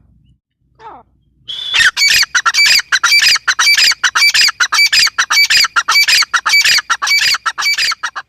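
Grey francolin calling: a short falling note, then a loud, harsh call repeated rapidly, about three or four notes a second, going on without a break.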